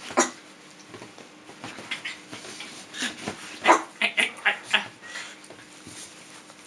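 Small dog yipping and barking in play: one sharp yip just after the start, then a quick run of about five short yips around the middle.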